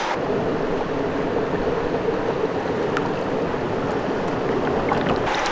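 Steady sound of river water flowing.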